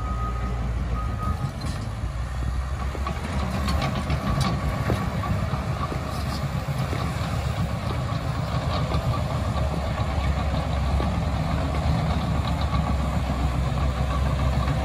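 Cat D6K bulldozer working: its diesel engine runs steadily, with scattered metallic clanks from the machine. Its backup alarm beeps for the first second or so, then stops.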